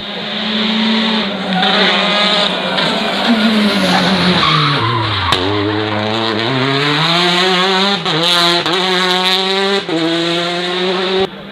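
Rally car engine on a special stage. The revs fall as it slows for a corner, with a sharp crack about five seconds in, then climb hard through several quick upshifts. The sound drops off sharply near the end.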